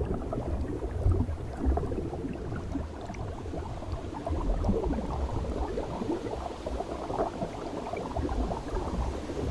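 Underwater bubbling and gurgling from air streaming out of helmet-diving helmets, muffled through a camera's waterproof case, over a low rumble.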